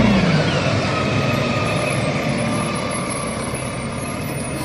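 Rear-loader garbage truck driving past. Its engine note falls in pitch right at the start, then settles into a steady rumble and road noise that slowly gets quieter.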